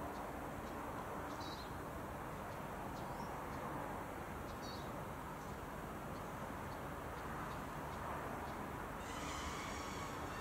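Steady outdoor background hiss with a few faint, short bird chirps. A brighter hiss comes in near the end.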